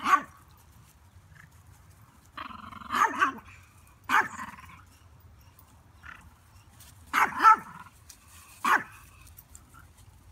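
A dog barking, about five barks or short bursts of barks spread over ten seconds, some of them doubled.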